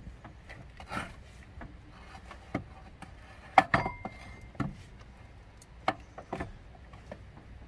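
Metal bracket assembly carrying the alternator and power steering pump knocking and clinking against the engine as it is shifted into place: a few sharp scattered knocks, the loudest about three and a half seconds in, followed by a brief ring.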